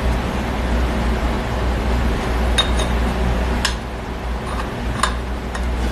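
Three light metallic clinks as the parts of a Ford nine-inch differential, the ring-gear carrier and its bearing races, are handled and fitted together, over a steady low hum.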